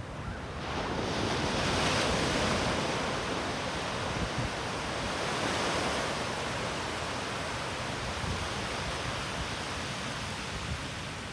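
Rushing wash of surf and wind, swelling about two seconds in and again near six seconds, with a low rumble of wind on the microphone.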